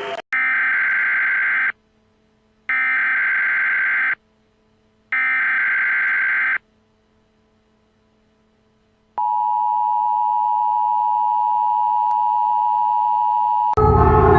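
Emergency Alert System tones: three short bursts of the digital header data, about a second apart, then after a pause a steady two-tone attention signal lasting about four and a half seconds. A louder sound cuts in over it near the end.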